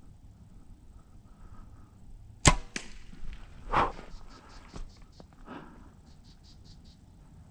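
Compound bow being shot: one sharp, loud crack of the string release about two and a half seconds in, followed by a few fainter knocks and rustles.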